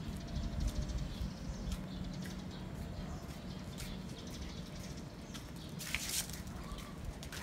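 Footsteps on a paved street: a run of light, fairly regular taps over a low rumble, with a short louder scuff about six seconds in.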